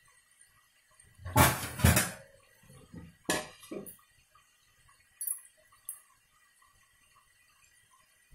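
Gavvalu frying in hot oil with a faint, steady sizzle, broken about a second in by two loud animal calls in quick succession and by two shorter ones about three seconds in.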